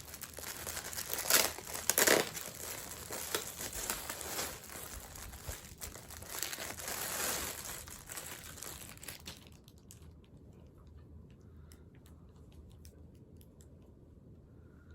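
Packaging crinkling and crackling as it is handled and opened to take out a plush toy, loudest in two bursts near the start. The crinkling stops about nine and a half seconds in, leaving only a few faint clicks.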